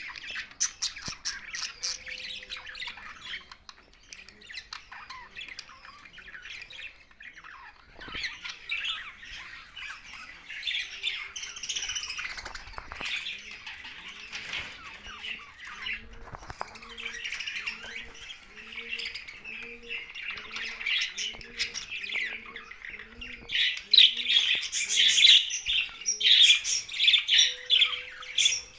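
Several budgerigars chattering and chirping continuously, a dense mix of squawks and warbles that grows louder near the end. A faint low call repeats about once a second underneath.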